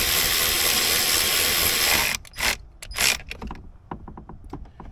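Cordless power tool running steadily for about two seconds to back out an old, corroded bolt, cutting off abruptly. Two short blips of the tool follow, then a few faint clicks.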